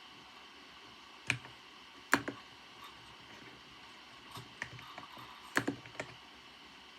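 Computer keyboard keys pressed in a few scattered, irregular taps, some in quick pairs, over a faint steady background hiss.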